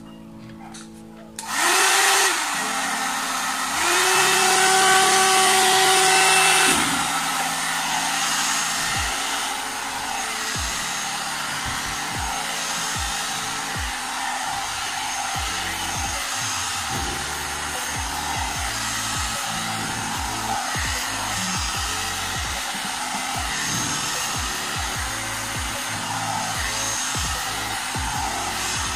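Hot air brush (a one-step hair dryer brush) switching on about a second and a half in and then blowing steadily, louder for about three seconds soon after it starts.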